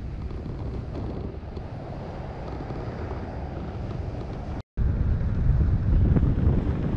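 Airflow rushing and buffeting over an action camera's microphone on a hang glider in flight. About two-thirds of the way through the sound cuts out for an instant and comes back louder, with heavier low buffeting.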